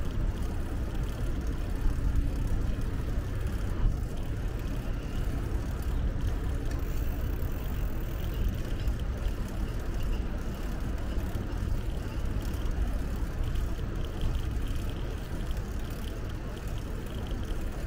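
Steady low rumble of wind on the microphone of a moving bicycle, mixed with road traffic noise.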